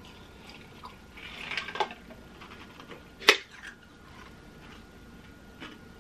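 A drink sipped through a straw from a tumbler, with a soft slurp early on and one sharp click a little over three seconds in.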